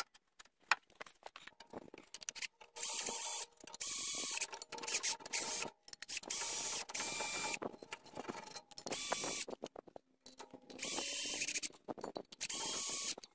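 Ratchet wrench clicking in short runs of about a second each, about eight of them with brief pauses between, as the bolts holding a new brake disc to its hub are run in.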